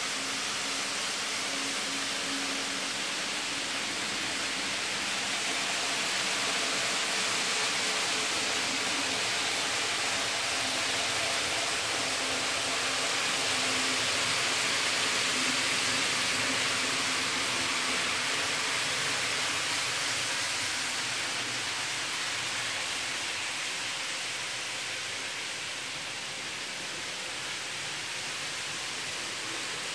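N-scale model trains running on the layout's track: a steady hissing whir of wheels and motors with a faint hum, swelling a little in the middle and easing off near the end.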